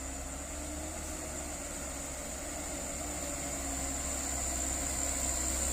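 Hino diesel truck engine running low and steady as it climbs the hill, growing gradually louder as it approaches, over a steady high-pitched whine.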